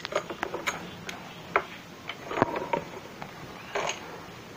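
Irregular light clicks and taps, about seven over four seconds, of hard parts being handled while a baby's rocking chair is put together.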